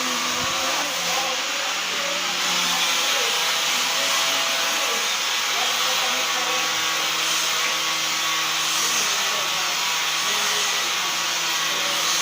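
Handheld electric sanding machine running steadily while sanding narra wood, a continuous motor whir with a broad hiss.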